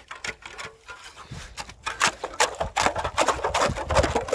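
Hand ice auger's blades cutting into lake ice: a rapid, continuous run of crunching scrapes and ticks as the auger is turned. It is quieter for about the first second, then grows louder and denser as the auger bores down into the hole.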